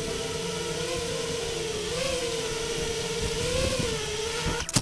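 FPV racing quadcopter's brushless motors (2307 size, 2450KV) with 5-inch props, whining steadily as heard from the quad's own onboard camera, the pitch bending up a little now and then with throttle. Just before the end comes a sharp knock as the quad comes down, and the motor sound drops away.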